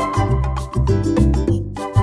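Upbeat background music with a steady dance beat, bass line and pitched instrument notes.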